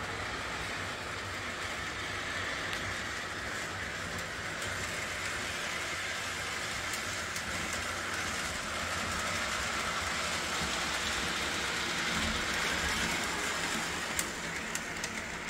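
O-gauge model train running on the layout's track: a steady motor hum and the rumble of wheels on the rails, with a few clicks near the end.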